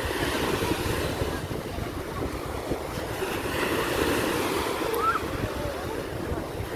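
Small surf breaking and washing up a sandy shore, with wind buffeting the microphone and faint scattered voices of people on the beach.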